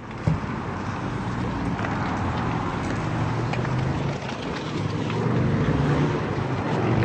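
Steady road-vehicle and traffic noise with a low engine hum that grows louder over the last couple of seconds, and a single knock shortly after the start.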